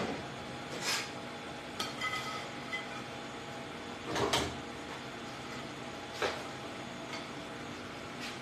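Kitchen clatter: a handful of scattered knocks and clinks of dishes and utensils being handled, the biggest about four seconds in, over a steady room hum.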